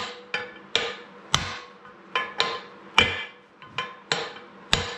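Hammer blows on steel, about two a second and unevenly spaced, each ringing briefly: knocking a rust-seized shaft out of an old arbor press.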